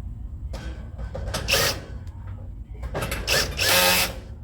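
Cordless drill/driver running in a few short bursts, driving screws into the bottom of the grill's front control panel. The last two runs are the longest and loudest.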